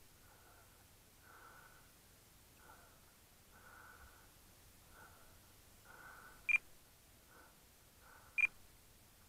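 Two short, high electronic beeps about two seconds apart, from the radio-control transmitter, over a faint background.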